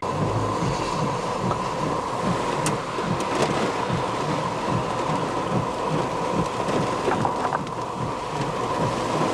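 Steady rain and wind noise of a thunderstorm, with a thin steady whine running underneath and a few faint ticks.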